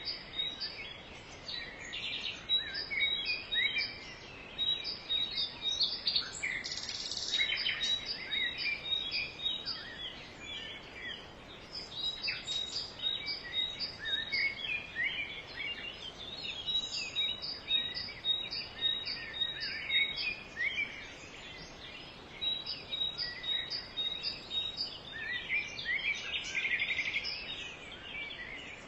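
Many forest birds chirping and calling together in a chorus of short whistled notes. A regular pulsing call repeats a few times a second through much of it.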